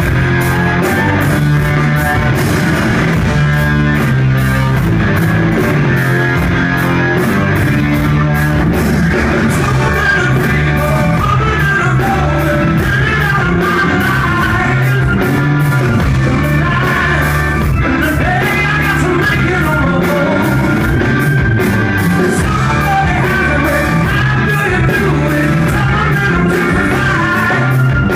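Rock band playing live with a singer: electric guitar, bass, keyboard and drums with a steady beat, heard from among the audience.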